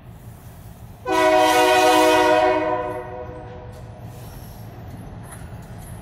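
GC-2 air horn on an EMD GP38-2 diesel locomotive sounding one long blast, a multi-note chord that starts sharply about a second in, holds for nearly two seconds and dies away, over the steady rumble of the approaching train.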